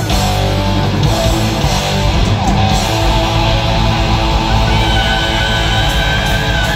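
Live metal band playing loud, with electric guitars and bass, heard through a phone's microphone in the crowd. A high, wavering lead note comes in about five seconds in and is held.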